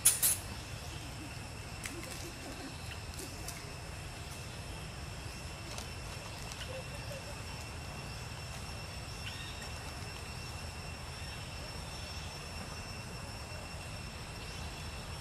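Outdoor ambience: a steady low rumble under two steady high-pitched whines, with a short sharp crackle right at the start and a few faint ticks later on.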